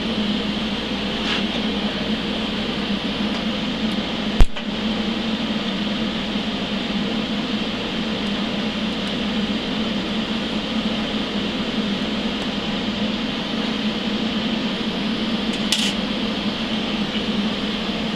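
Steady hum and hiss of TIG welding while thin-walled steel tube is tack-welded, with one sharp crack about four and a half seconds in.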